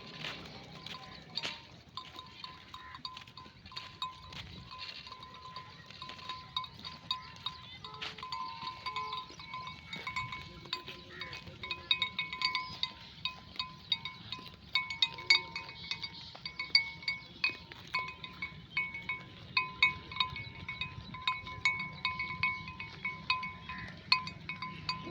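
Sheep bells on a grazing flock clanking irregularly, many short strikes with a ringing tone, coming thicker and louder in the second half.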